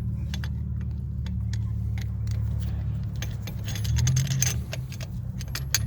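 Metal tools and brake parts clinking and jangling as they are handled, with the clicks coming thicker in the second half, over a steady low hum.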